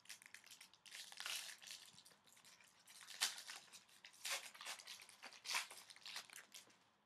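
Foil wrapper of a 2015-16 Upper Deck O-Pee-Chee Platinum hockey card pack being torn open and crinkled by hand: a run of crackling tears and crinkles, loudest in a few bursts from about one to six seconds in.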